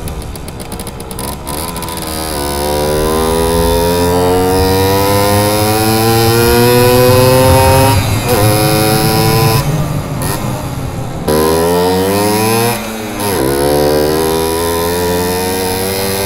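Simson S51 moped's single-cylinder two-stroke engine pulling hard under way. The revs climb for about five seconds, drop at a gear change about eight seconds in, then climb and drop again several more times as it shifts through its four-speed gearbox.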